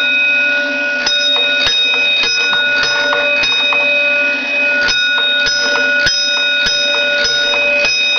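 The 6-inch electric gong bell of a 1950s Gamewell fire alarm box, struck over and over about twice a second, each stroke ringing on into the next, with a brief break about four seconds in. The box's code wheel is tapping out its alarm number on the bell.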